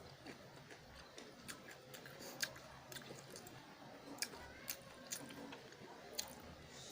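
Close-mic chewing of a mouthful of spicy instant noodles mixed with shallots and long beans: faint, soft mouth sounds with scattered small clicks and crunches at irregular moments.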